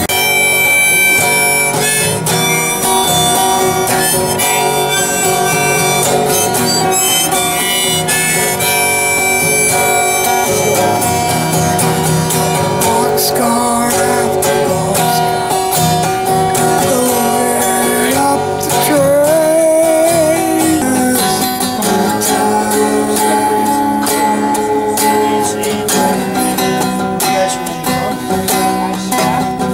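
Harmonica playing over strummed guitar, with long held notes and a bent, wavering note about two-thirds of the way through.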